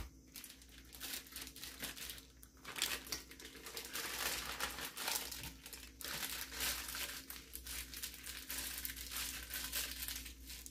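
Thin plastic bag crinkling and rustling as hands squeeze and work marinated raw chicken breasts out of it into a pot, in irregular spells with brief pauses.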